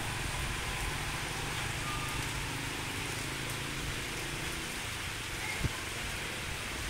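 Steady rain falling on a wet concrete pier, with one brief thump about five and a half seconds in.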